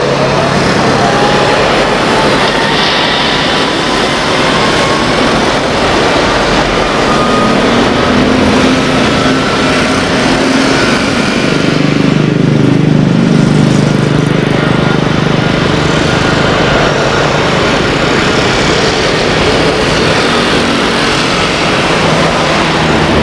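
Airbus A330-300's twin Rolls-Royce Trent 700 turbofans at take-off thrust: a steady jet roar with a whine that rises in pitch over the first ten seconds or so, the low rumble growing heavier a little past the middle as the airliner rolls down the runway.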